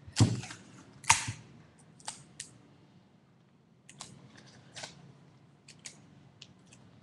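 Adhesive tape being pulled from the roll and torn off: two loud, short rasps about a second apart, followed by scattered small clicks and rustles of paper and tape being handled.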